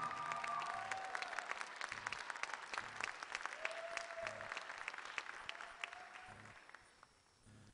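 Audience applause, many hands clapping, with a few cheering voices, fading away over the last couple of seconds.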